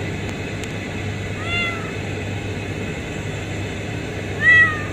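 Newborn kitten mewing: two short, high, arching mews, the second louder near the end, over a steady low hum.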